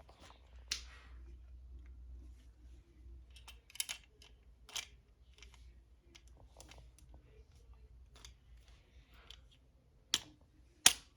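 Plastic parts of a Hexbug toy kit clicking and snapping as they are handled and fitted together: irregular small clicks, with two sharper snaps near the end.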